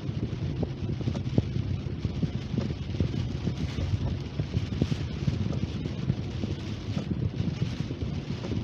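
Steady low rumble of a car driving on wet roads, heard from inside the cabin, with scattered light knocks.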